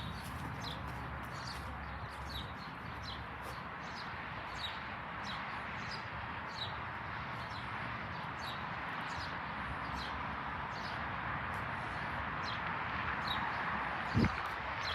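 Small birds chirping: short, high chirps about once or twice a second over a steady background hiss, with one brief thump near the end.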